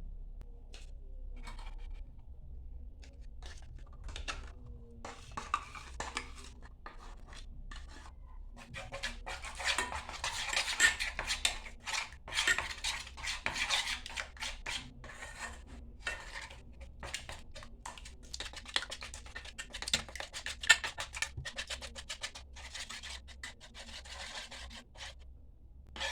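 Kitchen utensils clinking and scraping against a dish: scattered single clicks, then two long runs of rapid strokes in the middle and second half.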